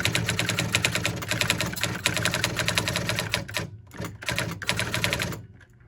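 Sears Electronic Communicator 2 electronic daisy wheel typewriter printing a rapid run of characters, the daisy wheel's strikes coming as a fast, even rattle of clicks over a steady motor hum. The run breaks off briefly about three and a half seconds in, then resumes, with its automatic carriage return switched on.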